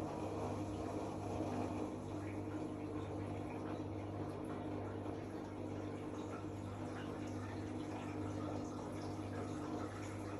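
Zanussi AquaCycle 500 FA 623 washing machine running, a steady low hum under a constant wash of water noise.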